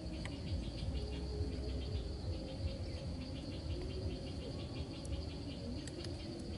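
Field insects: a steady high-pitched insect drone with a fast, even pulsing cricket chirp over it, above a low steady rumble. A few faint clicks near the end.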